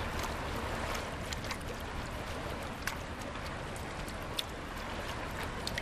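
Steady rushing of water with a low rumble underneath and a few faint ticks.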